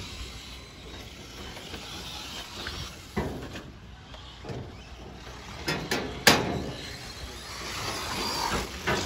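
Electric 1/10-scale two-wheel-drive short course RC trucks running on a dirt track, a faint motor whine and tyre noise, with a few sharp knocks in the middle.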